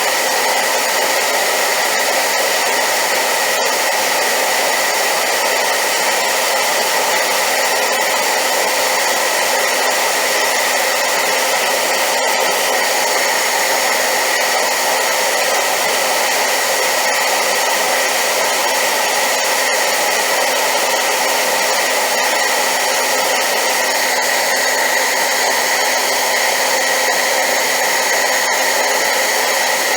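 Hair dryer running steadily on high power: a loud, unchanging rush of air with a faint steady whine from the motor.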